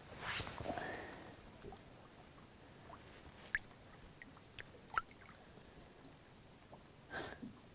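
Faint splashing and sloshing of shallow river water as a fish is let go by hand at the bank, loudest just after the start and again near the end, with two sharp ticks in between.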